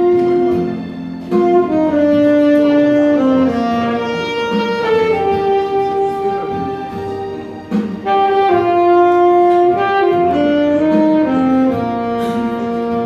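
Saxophone playing a slow ballad melody in long held notes, with instrumental accompaniment behind it.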